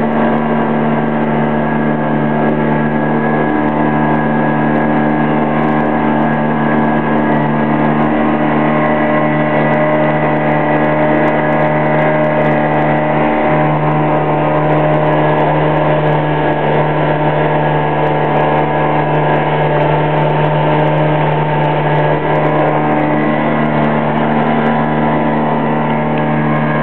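Engine of a wooden motorboat running steadily under way: a steady drone with several held tones. Its lowest tone grows a little stronger about halfway through.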